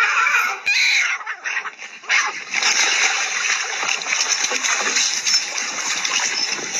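Sea water splashing and sloshing against a breakwater, an uneven rushing noise that sets in about two seconds in after a short lull.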